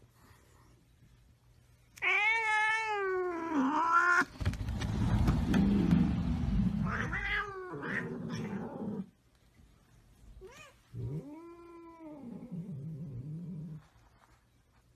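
A cat yowling in long, wavering, drawn-out calls. A rough low noise runs under the calls in the middle, and a shorter call and a falling call come near the end.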